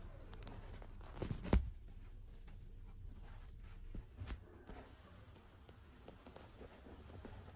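Soft rustling and small taps from hands handling a plastic fashion doll and fitting its fabric dress, with a louder knock about one and a half seconds in and a couple of smaller knocks around four seconds.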